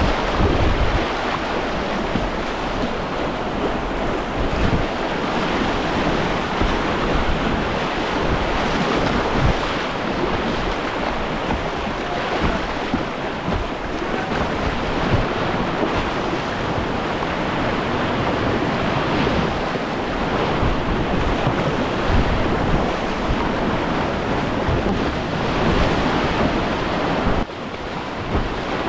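Whitewater rapids rushing and splashing close around a kayak's bow, with uneven low buffeting from wind on the microphone. The rush eases slightly about a second before the end.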